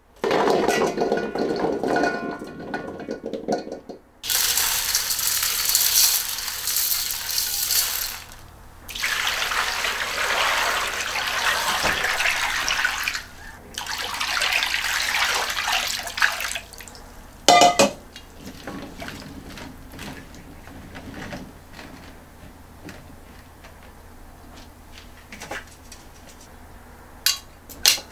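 Green plums tumbling from a mesh colander into a stainless steel bowl, then water poured over them in two long rushing pours. A sharp clank of the steel bowl is followed by quieter water sloshing and a few light metal clinks near the end as the colander is set over the bowl.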